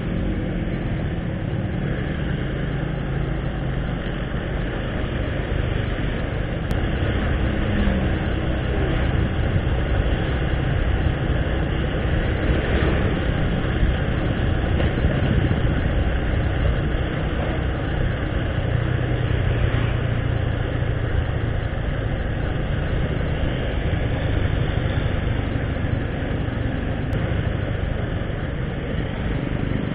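Motorcycle engine running steadily while riding, with road and wind noise.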